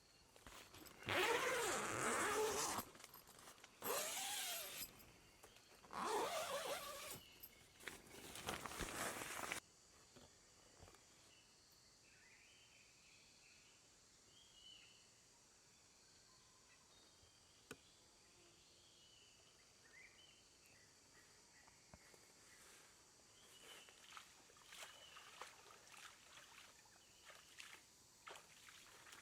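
Four loud rasping bursts of one to two seconds each in the first ten seconds, then quiet outdoor ambience with a faint steady high hiss and scattered faint chirps.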